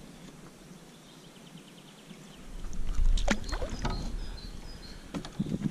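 Water splashing at the side of a small boat as an undersized carp is unhooked and slips back into the river, with a few sharp knocks and splashes starting about three seconds in after a quiet start.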